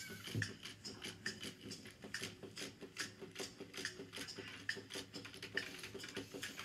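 Quiet, irregular clicking and ticking, several small clicks a second.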